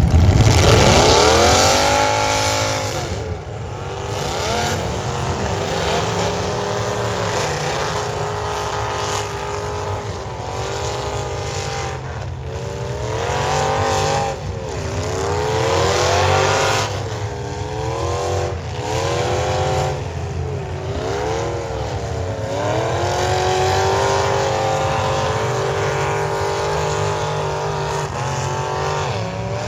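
Demolition derby car engines revving hard, rising and falling in pitch again and again.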